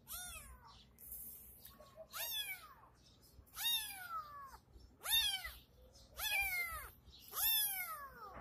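A kitten meowing repeatedly: about six high-pitched meows a little over a second apart, each rising then falling in pitch.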